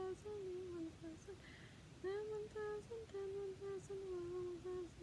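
A woman humming a wandering tune to herself in short held notes, breaking off for about half a second midway.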